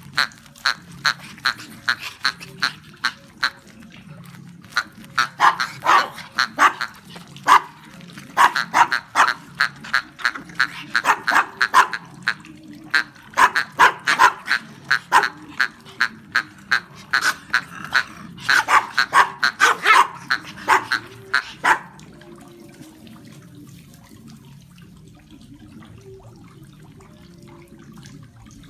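Small Brussels Griffon dogs yapping in quick runs of sharp, high barks, about two a second with short pauses. The barking stops about three quarters of the way through, leaving only a steady low background noise.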